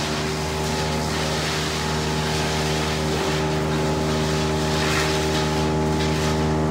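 Sawmill machinery running with a steady droning hum and constant mechanical noise.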